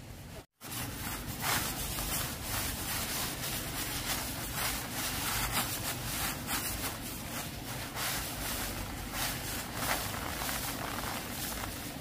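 Bare feet treading cut rice stalks on a plastic tarp to thresh out the grain: a run of irregular rustling and crunching of dry straw and crinkling tarp.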